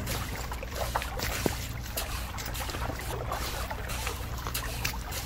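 Wet cement being spread and smoothed with a miniature toy shovel: soft wet scraping with scattered small clicks and dabs, over a steady low hum.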